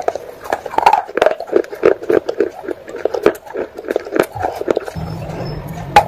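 Wet fired-clay pot pieces being bitten and chewed, a run of sharp crunches several times a second.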